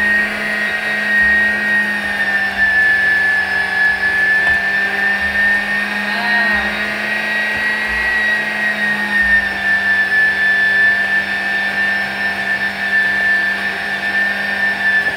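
Bork electric meat grinder running steadily, its motor whining at a nearly even high pitch while it minces stewed liver and carrots into strands for pâté.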